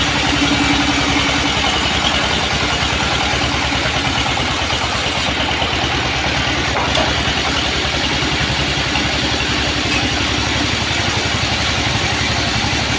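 Engine driving a sawmill band saw, running steadily with a fast, even beat.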